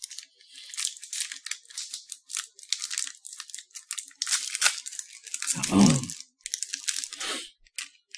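Kit Kat mini's plastic wrapper being torn open and crinkled, an irregular crackling that comes and goes for several seconds. A short low hum sounds a little before six seconds in.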